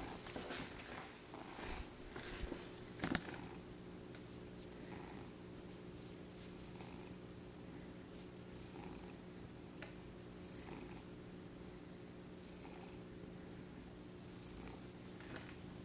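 Tabby cat purring steadily while held close, its breaths heard as a soft hiss about every two seconds. Handling noises and a knock in the first few seconds.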